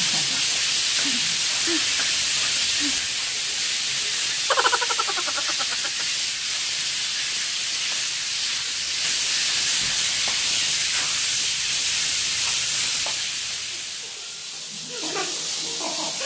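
Sandpaper rasping against a rough concrete wall as it is hand-sanded with 100-grit paper, a steady hiss. A brief buzzing sound cuts in about four and a half seconds in.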